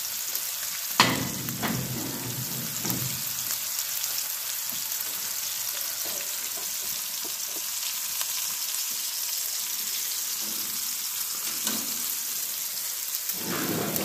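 Steaks sizzling steadily in a hot cast iron skillet on a wood cook stove's iron top. About a second in, a cast iron skillet is set down on the stove top with one sharp clank, followed by a few lighter knocks.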